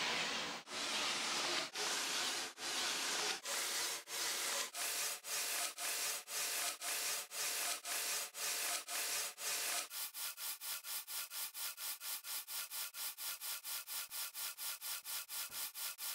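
Rhythmic rasping, sawing-like strokes that speed up: about one a second at first, about two a second from around four seconds in, then quick and even at about five a second with a higher pitch from around ten seconds. The sound cuts off abruptly at the end.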